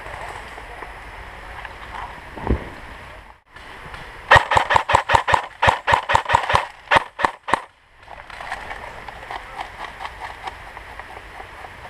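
Airsoft rifle firing a rapid string of about sixteen shots at roughly five a second, lasting about three seconds, after a single dull knock.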